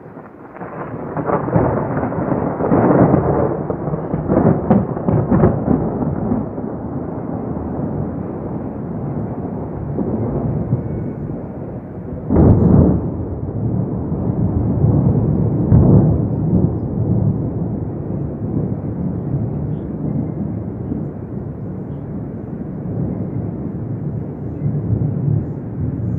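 Thunder: a long rolling peal that builds about half a second in and crackles for several seconds. A sharp clap comes about halfway through and another a few seconds later, and the rumble carries on throughout.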